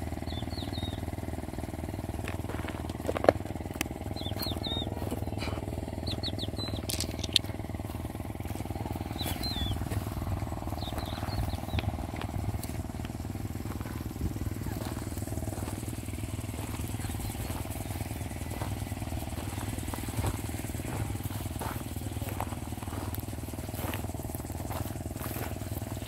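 A motor engine running steadily, heard as a constant low hum, with footsteps on gravel, a few short bird chirps and two sharp clicks at about 3 and 7 seconds in.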